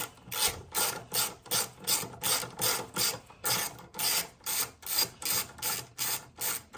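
A 10mm socket ratchet clicking through quick back-and-forth strokes, about three a second, as it unthreads a bolt that has already been cracked loose.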